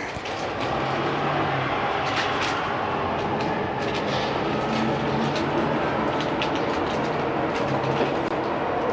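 Train running past: a steady rumble of wheels and running gear with scattered sharp clicks and an on-and-off low hum.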